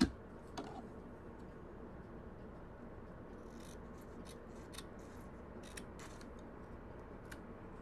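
Small craft scissors snipping through printer paper in a string of short, faint cuts, most of them between about three and a half and six seconds in. There is a single sharp knock right at the start.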